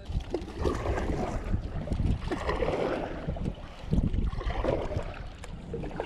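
Kayak paddle strokes in the water, a few swells of splashing and dripping a second or two apart, over a steady rumble of wind on the microphone.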